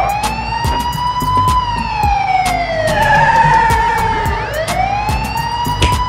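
Police car siren wailing in a slow rise and fall, climbing for about a second and a half and then sinking for about three, before rising again near the end. A beat of short knocks runs underneath.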